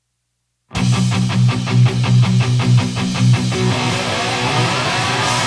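Heavy post-hardcore rock with distorted electric guitar and bass, starting abruptly about three quarters of a second in with a fast chugging riff. About three seconds in the riff gives way to sustained ringing chords with a rising pitch slide.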